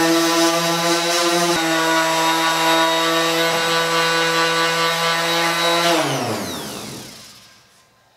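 Electric random orbital sander running steadily at one pitch, scuffing the painted sheet-steel side of a filing cabinet with 220-grit paper to prepare it for paint. About six seconds in it is switched off, and its whine falls in pitch and fades as it spins down.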